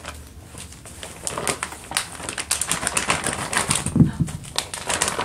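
Wrapping paper and cellophane crinkling and rustling in a quick, dense run of crackles as a small dog rummages through its torn-open gifts, with a brief low thump about four seconds in.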